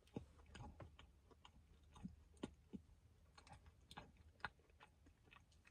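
Faint chewing of a soft sugar-cookie sandwich with buttercream filling: a scattering of small, quiet mouth clicks.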